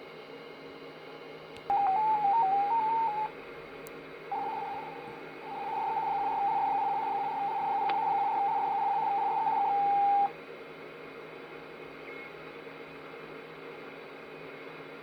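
A Superstar 3900 CB radio receiving a strange electronic tone on 27.555 MHz over steady band hiss. It starts as a warbling beep that steps up and down in pitch for about a second and a half. After a short gap comes a long steady tone of about six seconds that cuts off suddenly.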